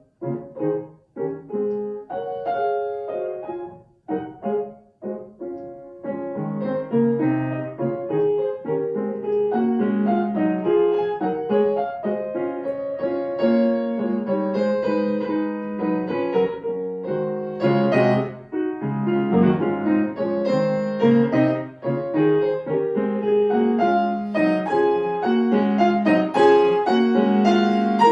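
Grand piano being played, a classical solo piece: short detached chords with brief gaps at first, then dense, continuous playing from about six seconds in.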